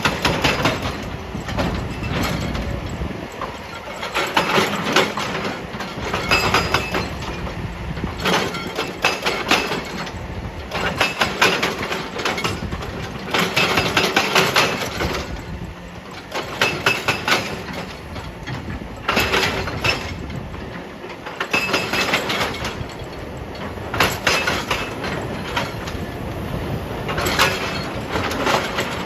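Excavator-mounted hydraulic breaker hammering rock in repeated bursts of rapid blows, about one every two seconds, over the excavator's running diesel engine.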